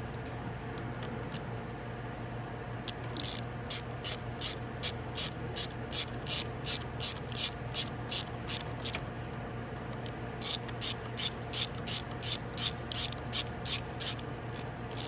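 Socket ratchet clicking in quick repeated strokes while the front sprocket's bolts are tightened down. The clicking comes in two runs of about three strokes a second, with a short pause between them.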